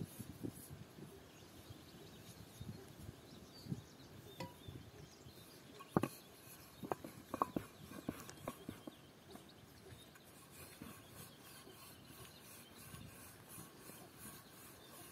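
Wooden rolling pin rolling out dough on a floured wooden board: soft rubbing with scattered light knocks of wood on wood, the sharpest about six seconds in.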